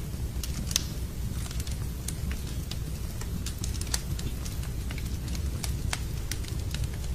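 Wood fire in a fireplace crackling, with sharp irregular pops over a steady low rumble; a louder pop just under a second in and another about four seconds in.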